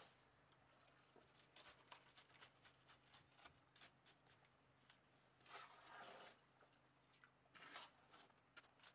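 Faint scraping and crunching of a small shovel working a wet concrete mix in a wheelbarrow, with small gritty clicks throughout and two longer scrapes, one about halfway and one near the end.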